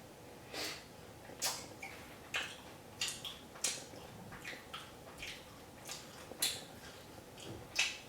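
Faint short clicks and rustles, about a dozen at irregular spacing, over a low steady hum.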